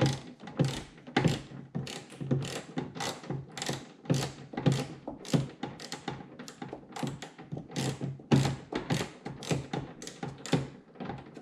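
Hand ratchet with a swivel socket clicking as it backs a spoiler nut off a stud inside a car's trunk lid, in short bursts about two to three times a second.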